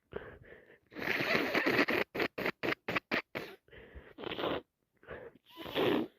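A person with a head cold sniffing through a congested nose: a longer noisy breath about a second in, then a quick run of short sniffs, then a few more sniffs near the end.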